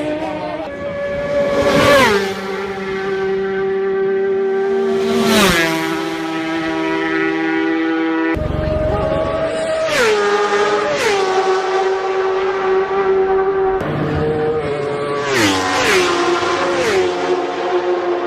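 Racing motorcycles passing one after another at high speed on a closed road course, their engines held at high revs. Each one drops sharply in pitch as it goes by, about five passes in all.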